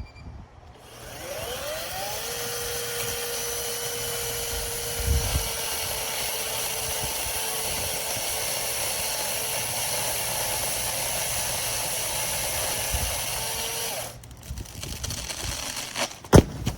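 Greenworks 40V brushless cordless chainsaw spinning up with a rising whine, then running steadily through a cut in a tree limb for about thirteen seconds before stopping abruptly. A sharp knock follows near the end.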